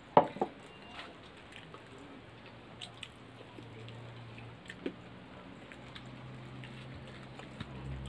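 A steel tumbler set down on a table with two sharp knocks just after the start, then quiet chewing and small wet sounds of hands eating noodles from steel plates, with scattered light clicks and a faint low hum underneath.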